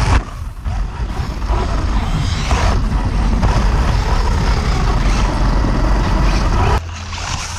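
Electric RC car driving over concrete, a loud rough rumble of motor, drivetrain and tyres. There is a sharp knock right at the start, and the noise drops suddenly near the end.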